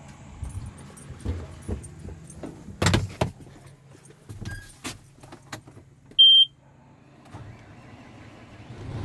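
Clicks and knocks of keys and a door being handled, then about six seconds in a single short, high-pitched electronic beep, really loud, followed by a low steady hum.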